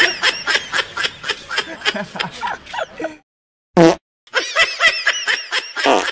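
People laughing in quick, repeated bursts of giggling, breaking off about three seconds in. A single short pitched burst follows, then a second run of laughter.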